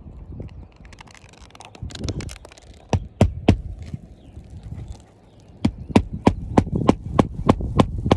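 Hammer driving roofing nails back into an asphalt shingle: three sharp blows about three seconds in, then a quick run of about nine blows, roughly three a second, from about halfway on.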